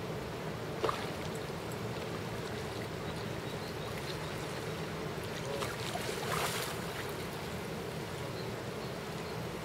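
Steady rush of river water, with a splash a little after six seconds as a hooked wels catfish thrashes at the surface, and a short click about a second in.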